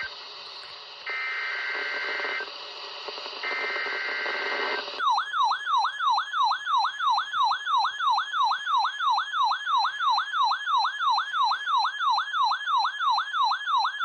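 NOAA Weather Radio SAME data bursts: three short bursts of screechy two-tone data over radio static. About 5 s in, a weather radio receiver's alert takes over, a sweeping siren-like tone repeated about three times a second, as the receiver is activated by the required weekly test.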